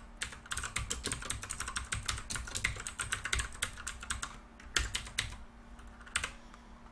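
Typing on a computer keyboard: a fast, continuous run of keystrokes that thins out about four and a half seconds in to a few scattered key presses.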